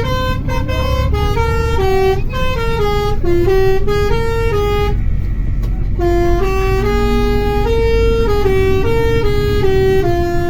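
A bus's multi-tone telolet air horn playing a jingle of stepped notes, changing pitch two or three times a second without a break, over the low rumble of the vehicle's engine and road.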